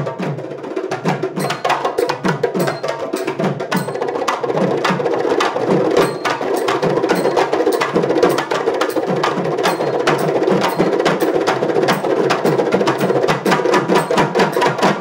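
An ensemble of magudam, buffalo-hide frame drums, played with bare hands in a fast, dense rhythm of sharp strokes, several a second. Deep strokes that drop in pitch run under them.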